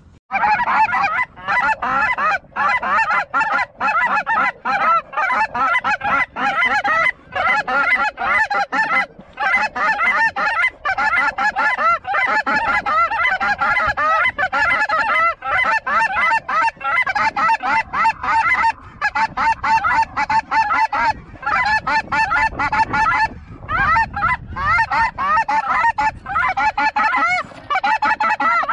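A large flock of snow geese calling, many high, yelping honks overlapping in a continuous chorus.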